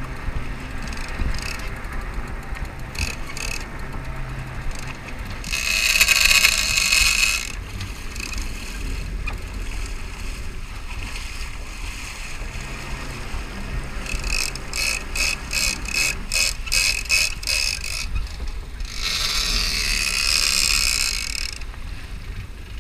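Open deck of a sportfishing boat during a fight with a hooked giant bluefin tuna on a big-game rod and reel: a steady low rumble under two loud hissing rushes, one about six seconds in and one near the end, and a run of quick even clicks, about two or three a second, in between.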